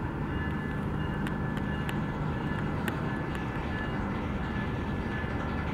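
Diesel locomotive running steadily, a low engine drone with a high steady whine over it and a few sharp clicks scattered through.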